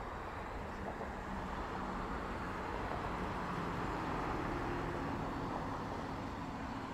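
Road traffic: cars passing on a multi-lane road, a steady rush of tyre noise with a low engine hum that swells a little midway.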